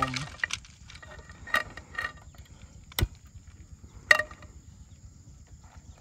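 Metal clinks and clicks as a frying pan is set on and handled on a portable butane camping stove: a few light clinks, a sharp single click about three seconds in, and a louder ringing clink a second later.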